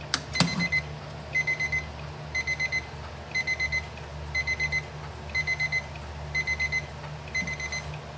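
Electronic alarm clock beeping: quick groups of four short high beeps, repeating about once a second, after a click near the start.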